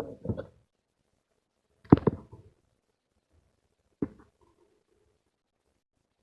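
Wire-stripping crimping pliers clicking and snapping as they work on a cable: a cluster of sharp clicks at the start, two louder snaps close together about two seconds in, and a single click about four seconds in.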